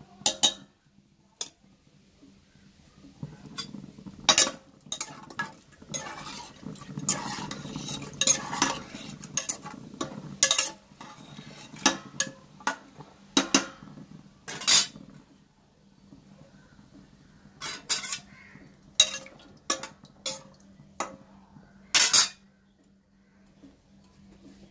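Metal spoon stirring dal in a pressure cooker, clinking and scraping against the pot: a denser run of stirring in the middle, then separate sharp clinks. A steady low hum runs underneath.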